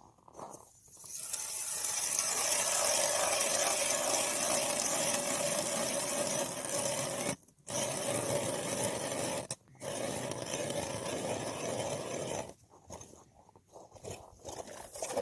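Ice auger boring a hole through thick lake ice: a steady grinding rasp that stops briefly twice and ends about three seconds before the end, followed by scattered scraping.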